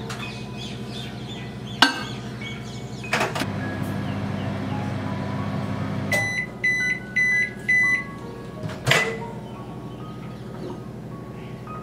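Microwave oven running with a steady hum that stops about six seconds in, followed at once by a run of short high beeps signalling that the heating cycle has finished. A few sharp clicks fall before and after, the loudest near nine seconds.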